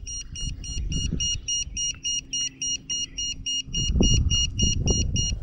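Fly Wing FW200 helicopter's low-battery beeper sounding short, high-pitched beeps about four times a second, the sign of a low flight battery. Low handling knocks and rumble underneath, louder about four seconds in.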